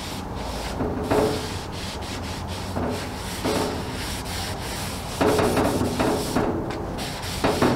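Paper towel rubbing over a flat-top griddle's steel cooktop, scrubbing it clean in uneven back-and-forth strokes, some louder than others.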